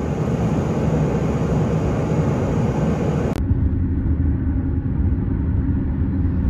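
Fishing boat under way: a loud rush of wind and water with engine rumble. About three and a half seconds in it cuts abruptly to a deeper, steady engine rumble.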